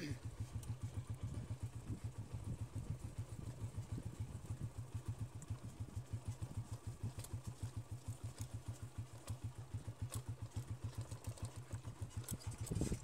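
Small motorcycle engine running at low speed while being ridden, an even, steady low putter. A brief louder knock near the end.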